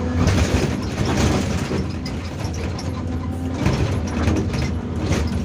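Hyundai R480LC-9S excavator's diesel engine working under load, with rough surges of scraping and clattering as the bucket handles blasted limestone.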